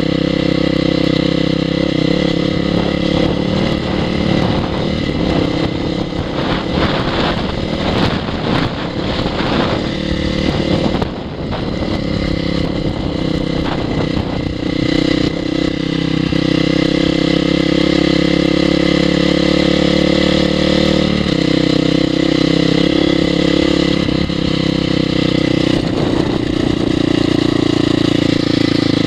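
2002 Honda CRF450R's single-cylinder four-stroke engine running under way on a ride, mostly at steady revs with a few steps in engine speed. Between about 5 and 15 seconds in the engine note turns rough and noisy, with a short dip about 11 seconds in.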